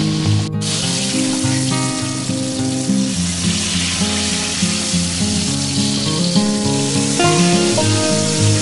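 Eggplant slices sizzling as they fry in hot oil in a wok, a steady frying hiss, over background music.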